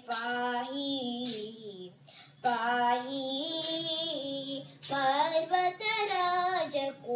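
A girl singing a Kannada devotional song to the goddess Gowri, with long held notes that glide between pitches and a short pause for breath about two seconds in.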